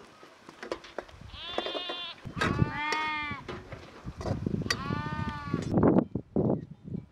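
A lamb bleating three times, each call about a second long. Near the end comes a run of rough crackling and rustling noise.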